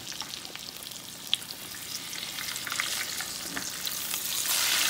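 Pork belly chunks frying in shallow oil in a skillet, a steady sizzle with fine crackles as the pieces are turned with metal tongs. There is one sharp click about a second in, and the sizzle grows louder near the end. The pork is nearly done and browned, so it hardly spatters anymore.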